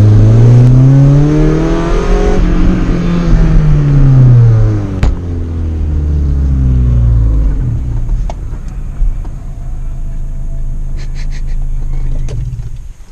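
Honda Civic's 75 hp four-cylinder engine with a loud aftermarket exhaust, heard from inside the cabin. The revs rise over about the first two seconds, fall away over the next few seconds, then hold low and steady. The engine sound cuts out just before the end.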